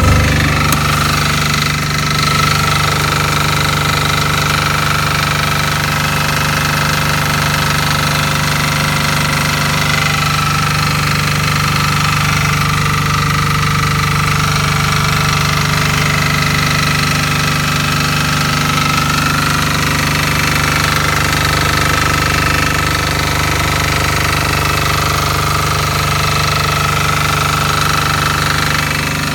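Fermont MEP-831A 3 kW military diesel generator running steadily at low load, a little loud with its access door open. The single-cylinder diesel engine keeps an even beat.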